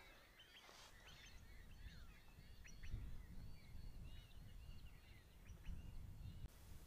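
Faint chorus of small birds chirping and twittering, many short calls overlapping, over a low, uneven rumble.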